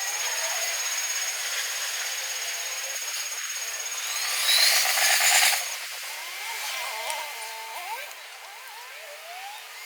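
Electric train at a level crossing: a steady high whine with hiss, then a louder rush with rising tones a little before halfway, followed by shorter upward-gliding tones.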